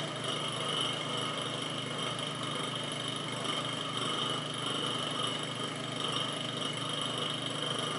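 Vacuum pump running steadily with an even hum, pumping the air out of a vacuum chamber so that warm water inside starts to boil at reduced pressure.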